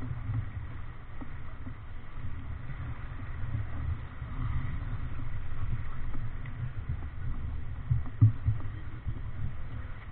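Wind buffeting the microphone of an action camera on a heeled sailing yacht, a steady low rumble with waves rushing along the hull. A couple of thumps stand out about eight seconds in.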